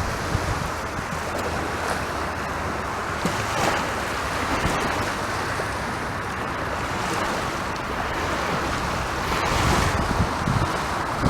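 Sea waves breaking and washing up a beach as a steady rush of surf. A wave swells louder about a third of the way in and again near the end.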